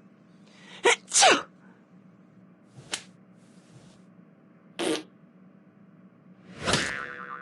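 A series of sneezes, one after another: two in quick succession about a second in, the loudest, then a short one near three seconds, another near five, and a longer one near the end.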